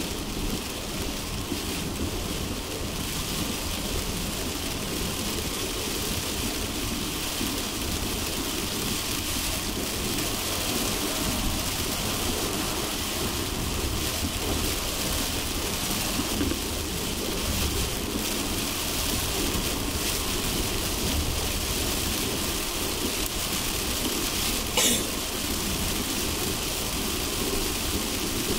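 Heavy rain on a car driving along a highway: a steady rush of rain and spray over low tyre and road rumble. A short sharp noise stands out once near the end.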